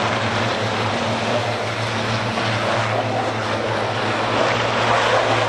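Racing trucks' diesel engines running on the circuit: a steady, even drone with no clear rise or fall.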